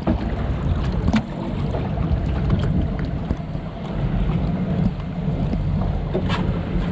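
Log-flume boat moving along a shallow water channel: a steady low rumble of the hull and flowing water, with wind on the microphone. A light knock about a second in and another near the end.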